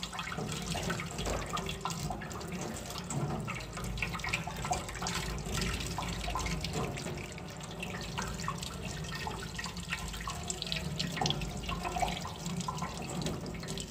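Tap water running into a stainless steel sink and splashing over a raw blue swimmer crab as it is rinsed by hand, with light clicks of the shell being handled.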